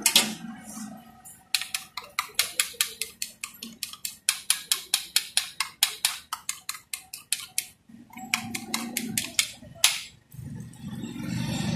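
Metal tongs beating egg in a small steel bowl: rapid metallic clicking, about five or six strikes a second, pausing briefly and ending with a few louder clacks.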